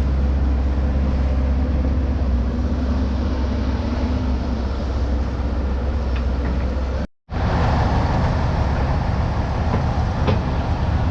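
Large diesel excavator engine running steadily under load, a loud low rumble. The sound cuts out for a split second about seven seconds in, then resumes much the same.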